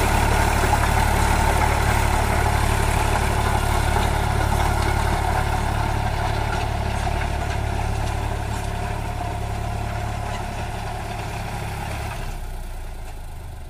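Eicher 548 tractor's three-cylinder diesel engine running steadily under load as it drives a rotavator through the soil, fading gradually as the tractor moves away. Its low hum drops off about twelve seconds in.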